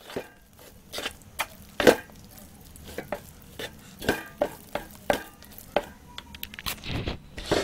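Thick bambara nut flour, palm oil and lukewarm water being stirred in a bowl, turned into a paste, giving irregular short clicks and scrapes.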